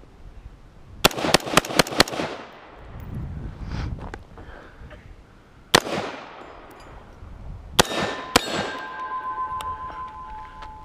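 Pistol gunshots: a fast string of about six shots, then a single shot, then two more. After the last shot, a hanging steel target rings with a steady, clear tone.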